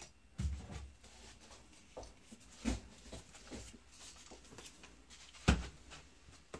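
Scattered knocks and bumps of handling as the roller blind tube is lifted about. The loudest knock comes about five and a half seconds in.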